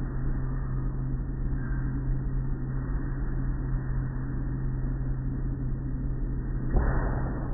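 Automatic car wash machinery running: a steady hum over a low rumble, with a short rush of noise near the end.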